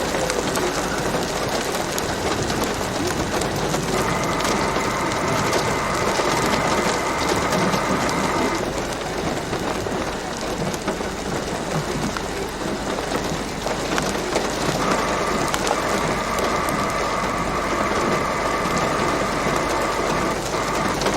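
Heavy rain falling on a vehicle, a steady, even noise. A steady high tone sounds over it from about four to eight seconds in, and again from about fifteen seconds in to the end.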